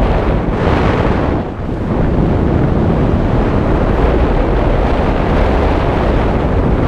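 Wind rushing over a skydiver's camera microphone: a loud, steady buffeting roar that dips briefly about a second and a half in.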